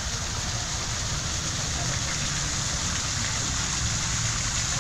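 Steady rushing hiss of a pond fountain's water spray, with a low rumble underneath.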